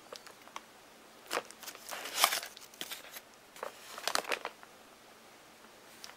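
Thin wrapping paper and card packaging of a phone box rustling and crinkling as they are handled, in several short bursts, the loudest about two seconds in.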